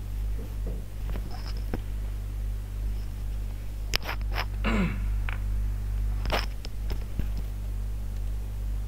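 Steady low electrical hum, with a few scattered clicks and knocks and one short falling squeak about halfway through.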